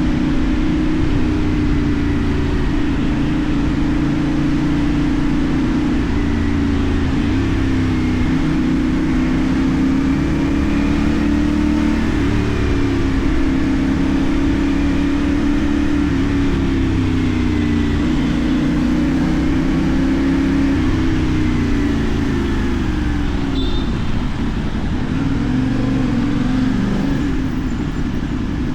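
CFMoto 450NK parallel-twin engine running through a LeoVince aftermarket exhaust under way, its pitch climbing and falling repeatedly as the bike accelerates and shifts gears, with a steady rush of wind noise.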